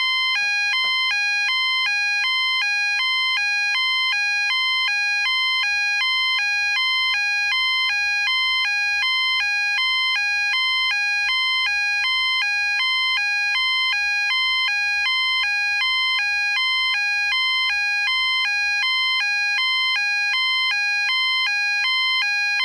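EMS fire alarm sounder going off in a test: a steady, loud two-tone alarm that alternates evenly between a lower and a higher tone, each held for just under half a second.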